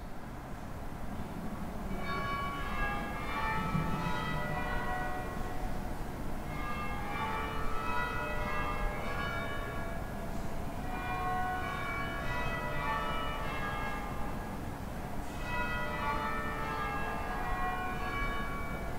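Church bells change ringing: runs of many bell strikes, each run stepping down in pitch, coming round about every four seconds over a low rumble.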